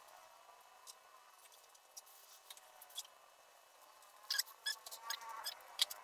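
Scattered light, sharp clicks and ticks, a few spaced out at first, then several in quick succession in the second half, over faint room noise.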